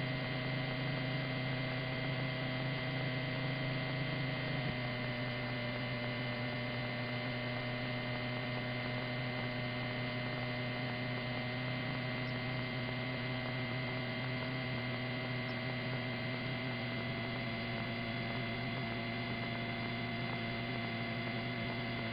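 Steady hum with a faint high steady whine: the background noise of a police helicopter's intercom and radio audio feed between transmissions.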